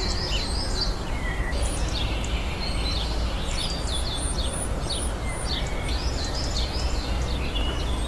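Birds chirping in many short, high calls, including a quick run of five repeated notes near the middle, over a steady low background rumble.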